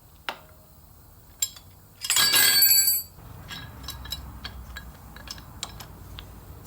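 Metal hand tools clinking. Two light clicks, then about a second of loud jangling, ringing metal, followed by a run of small irregular ticks and clicks.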